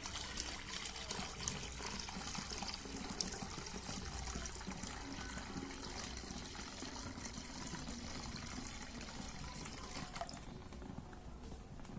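Aqua regia solution being poured slowly into a cement-bag paper filter, trickling and draining through into a bucket; the pouring stops about ten seconds in.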